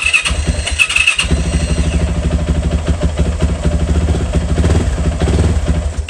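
2018 Yamaha YZ450F's single-cylinder four-stroke engine being electric-started: the starter cranks for about a second, the engine catches and idles with a fast, even firing beat, then cuts out suddenly near the end when the engine stop switch is pressed.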